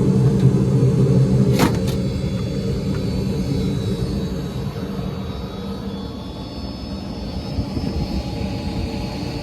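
HVAC unit's belt-driven blower, on a brand-new belt, running with a steady low rumble and hum. There is a sharp click about a second and a half in, after which the hum fades and the rumble gradually quietens.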